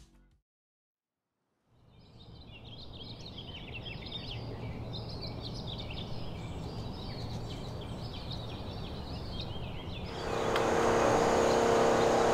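Outdoor ambience fading in after a second of silence: birds chirping over a steady low hum. About ten seconds in, a louder, steady machine-like noise from building work at a neighbouring property comes in.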